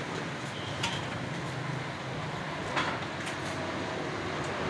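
Street ambience: a steady wash of traffic and outdoor noise, with a couple of short knocks about one and three seconds in.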